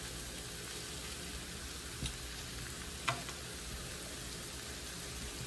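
Green-chilli tempe sambal frying in a pan with a steady sizzling hiss while a slotted metal spatula stirs it, knocking briefly against the pan twice, about two and three seconds in.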